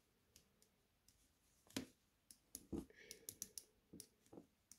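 Faint, irregular clicking of knitting needle tips tapping together as stitches are worked, with a quick cluster of clicks about three seconds in.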